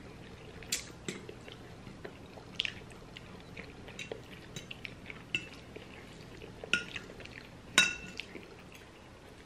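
Metal forks clinking and scraping now and then against ceramic plates, with two louder clinks that ring briefly late on.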